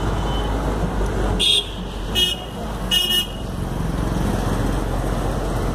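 Steady low rumble of vehicles on the street, cut by three short vehicle horn toots: about a second and a half in, at two seconds, and just after three seconds.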